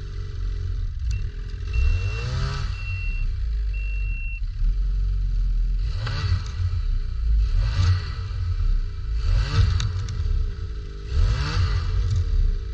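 Ski-Doo Summit 600R E-TEC's two-stroke twin engine revved in short repeated blips, roughly one every two seconds, each rising and falling back to idle. The throttle is worked as the stuck sled is rocked loose in deep snow.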